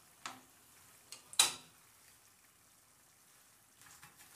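Wontons frying in a pan of oil, a faint steady sizzle, with sharp clacks of metal tongs as the fried wontons are lifted out and set on a plate. The loudest clack comes about a second and a half in.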